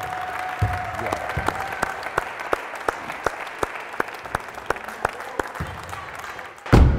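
A small crowd applauding, with individual sharp hand claps close by standing out over the clapping. Near the end a sudden loud low thud cuts in.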